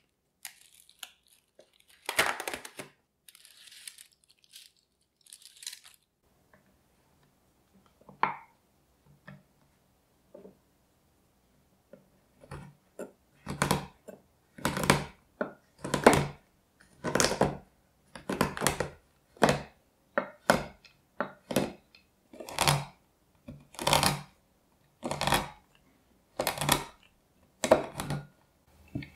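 A cardboard box of chocolate bars being opened, its flaps rustling and tearing in short bursts. From about halfway, a kitchen knife chops a milk chocolate bar on a wooden cutting board in steady strokes, about one a second, each a crisp crack with a dull knock of the blade on the wood.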